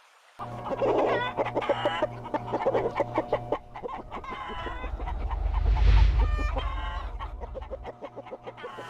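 Many chickens clucking and squawking together, starting abruptly about half a second in. A low rumble swells through the middle and fades away.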